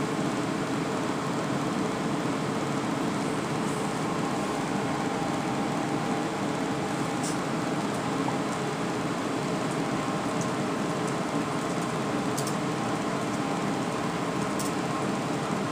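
Desktop PC's cooling fans running steadily with a faint hum during a reboot from the BIOS. A few faint high ticks come through about halfway in and near the end.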